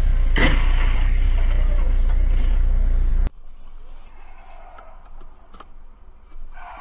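Dash-cam recording of a car's engine and road noise, heard as a loud, steady low rumble with a sudden sharp noise about half a second in. After about three seconds it cuts to a much quieter dash-cam recording with faint cabin sounds and a single click.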